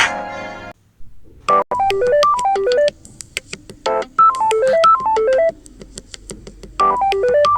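Phone ringtones played back one after another. A chord ringtone fades out under a second in, and after a short pause the next ringtone starts: a bright melodic phrase of short keyboard-like notes running down and back up, repeated about every two and a half seconds.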